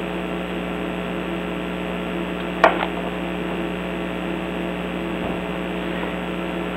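Steady electrical hum, several even tones held level, with a single light tap about two and a half seconds in.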